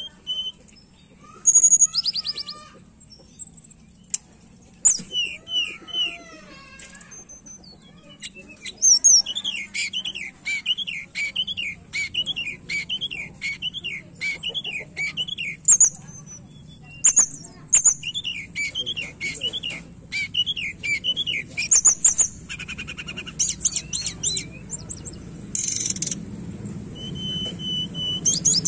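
Caged tledekan gunung, a blue flycatcher, singing. A busy run of sharp whistles and chirps is broken by two long stretches of a quick, repeated up-and-down warbled phrase in the middle.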